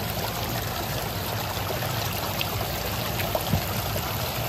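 Water splashing steadily as a dense crowd of koi thrashes at the surface, jostling for food, with a few faint ticks.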